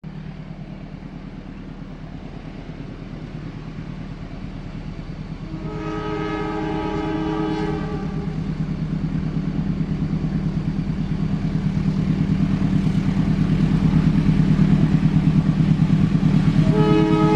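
An approaching train, its low engine drone growing steadily louder, sounds its horn, a multi-note chord held about two seconds, a quarter of the way in, then sounds it again near the end.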